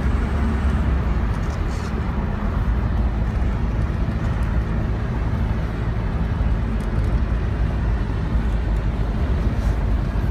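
Steady road and engine noise of a moving car heard from inside the cabin, dominated by a deep, even rumble.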